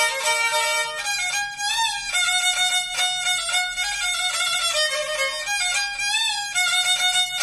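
A Black Sea kemençe (Karadeniz kemençesi) bowed solo, playing a folk tune. Held notes are broken by quick wavering ornaments about two seconds in and again near six seconds.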